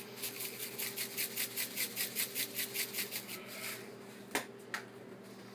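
Spice shaker of crushed red pepper flakes being shaken over a pot, a quick even rattle of about five shakes a second that stops about three and a half seconds in. Two sharp clicks follow near the end.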